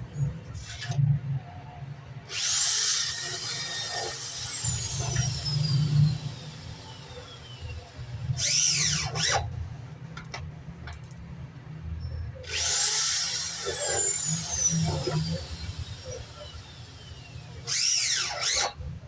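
Handheld electric power tool motor spinning up to a high whine, holding for a couple of seconds, then winding down slowly. This happens twice, about 2 and 12 seconds in, and each run is followed a little later by a short, quick rev up and down.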